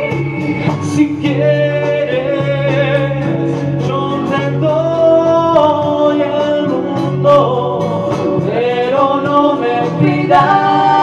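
Live song performance: singing with instrumental accompaniment, a slow melody of long held notes joined by slides.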